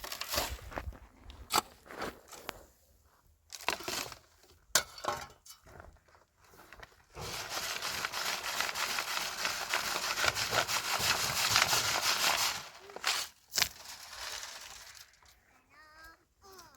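Dry soil being worked by hand: scattered scrapes and knocks, then a steady gritty rustle for about five seconds starting some seven seconds in.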